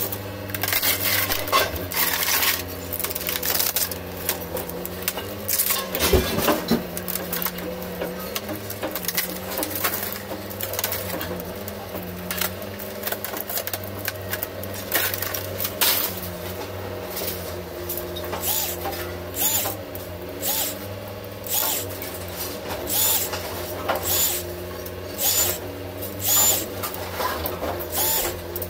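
Laptops being taken apart by hand: irregular clicks, snaps and rattles of plastic and metal parts, over a steady hum.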